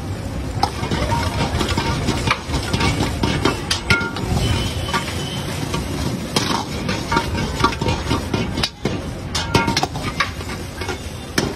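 Long-handled steel ladle scraping and clanking against a large iron wok in irregular strokes as shredded cabbage and vegetables are stir-fried, with food sizzling underneath.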